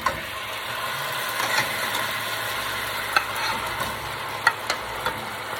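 Chicken drumsticks searing in a hot pan with browned garlic, a steady loud sizzle, with a few sharp clicks of a utensil against the pan.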